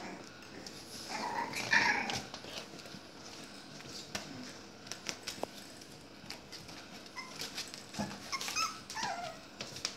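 Young puppies squealing and whimpering while they play-fight: a cluster of high yips about a second in and more near the end, the last ones falling in pitch. Light taps and scrapes of paws sound between the calls.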